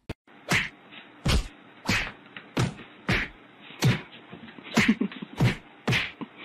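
A steady run of sharp slap-like whacks, about nine of them, one every two-thirds of a second, over a faint hiss.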